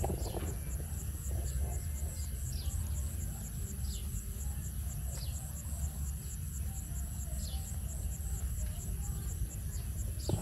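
Insects chirping in a fast, even rhythm of about four pulses a second over a constant high whine, with a few short falling bird calls. A steady low rumble runs underneath.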